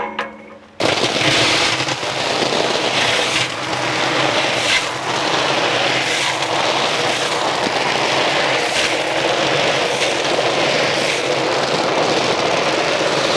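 Heaps of black clams in their shells sliding and clattering from a wide metal basin into a large metal cooking pot: a dense, continuous rattle of shell on shell and on metal.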